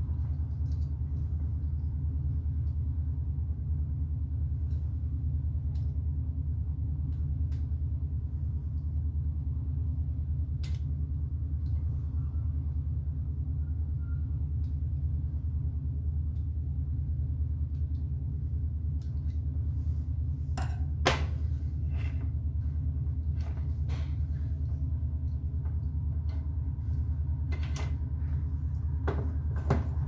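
Steady low hum of room noise, with scattered small clicks and taps as a small screwdriver and an X-ray exposure hand switch are handled; the sharpest tap comes about two-thirds of the way through, and another near the end.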